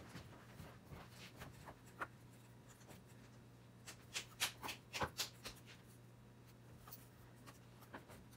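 Hands working a clay slab with plastic cookie cutters on a cardboard sheet: light scraping and rustling, with a cluster of sharper taps and scrapes about four to five seconds in. A faint steady hum runs underneath.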